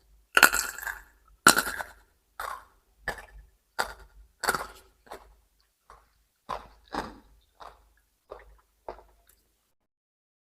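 Crisp crunching of raw vegetables being chewed, close to the microphone, about one or two crunches a second. The crunches are loudest in the first couple of seconds, then grow fainter and stop shortly before the end.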